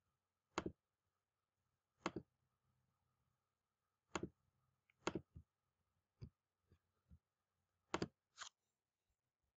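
Computer mouse clicking: about ten short, sharp clicks at uneven intervals, several in quick pairs, with near silence between them.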